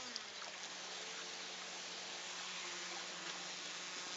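Small motor of a radio-controlled model motorboat buzzing steadily. Its pitch falls at the start, then holds level.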